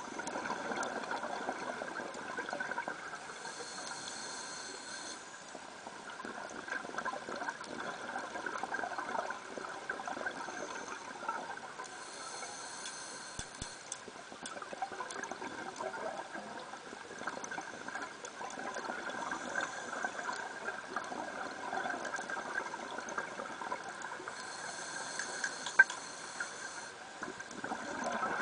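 Underwater noise during a scuba dive: a steady crackling hiss, with a brief higher hiss three times, roughly ten seconds apart.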